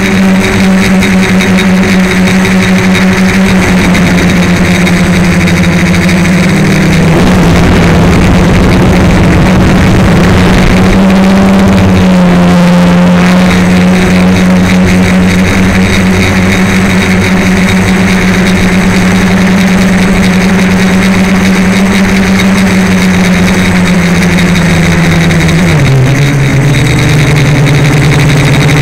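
DJI Flame Wheel F450 quadcopter's electric motors and propellers humming loudly as heard from the craft's own camera, a steady buzzing tone that shifts with throttle. The pitch steps down a little about four seconds in, wavers, rises again, then drops clearly near the end as the throttle is eased.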